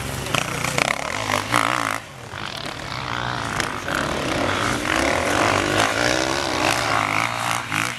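Enduro dirt bike engine revving up and down under changing throttle, easing off briefly about two seconds in.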